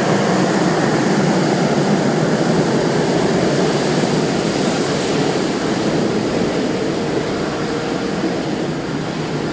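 Rolls-Royce Trent 1000 turbofans of a Boeing 787-8 running at low taxi power as the aircraft rolls past close by: a steady rushing hum with a faint high whine. It eases slightly over the last few seconds as the aircraft moves away.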